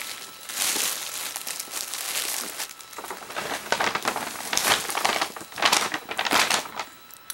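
A bag crinkling and rustling as it is handled, in uneven bursts, with the loudest crinkles in the second half.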